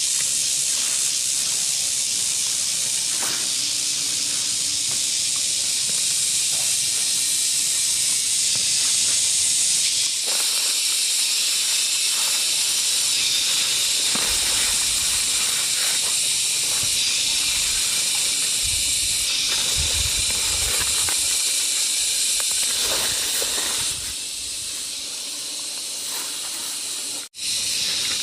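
A steady high-pitched hiss with scattered faint knocks and rustles beneath it, cutting out for an instant about a second before the end.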